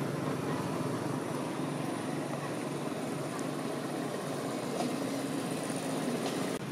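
Steady outdoor background noise, a low, even rumble with no distinct events, that drops out for a moment near the end.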